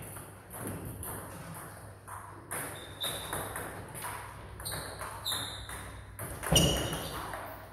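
Table tennis ball clicking back and forth between bats and table in a rally, a hit roughly every half second, with a few short high squeaks and a heavier knock near the end.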